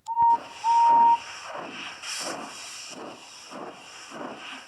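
Steam locomotive whistle giving two short toots, the second longer, then the engine chuffing steadily at about two puffs a second.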